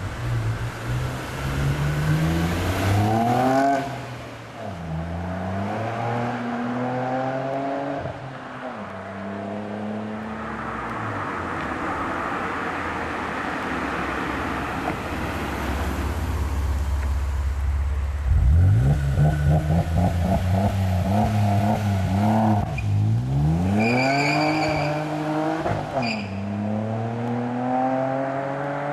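Opel Vectra OPC with a full straight-through exhaust on 76 mm pipe, accelerating hard through the gears: the engine note climbs in pitch, drops back at each shift and climbs again, with a stretch of steady running in the middle. A brief high whistle is heard about two-thirds of the way through.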